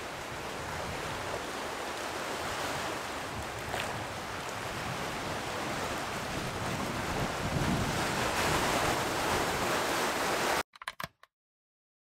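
Sea surf washing on a rocky shore, a steady rushing noise with some wind on the microphone, growing louder toward the end and then cutting off abruptly about a second and a half before the end.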